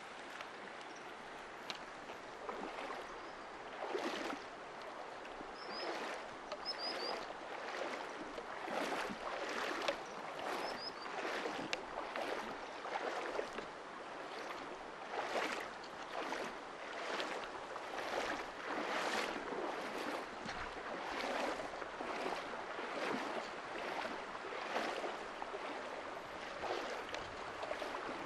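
Feet wading through a shallow, rocky mountain stream, a splash about once a second over the steady rush of the water.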